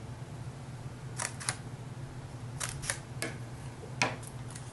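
Scissors snipping copy paper: a handful of short crisp snips, several in quick pairs, about a second apart, cutting small notches into a paper airplane.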